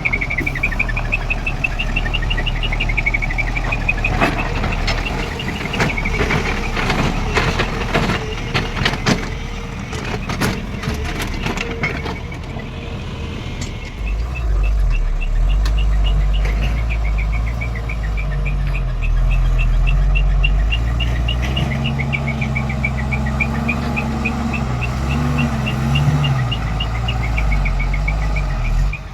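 Diesel engine of earth-moving machinery running at a soil-loading site. A flurry of sharp clattering knocks comes in the first half, and the engine grows louder about halfway through, its note rising for a few seconds near the end. A fast, high-pitched pulsing chirp runs over it most of the time.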